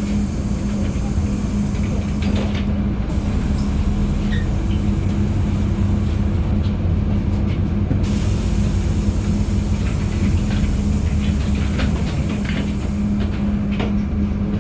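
Inside a LiAZ-5292.71 CNG-powered city bus under way: a steady drone from the gas engine and drivetrain over low road rumble, with scattered small rattles and clicks from the body.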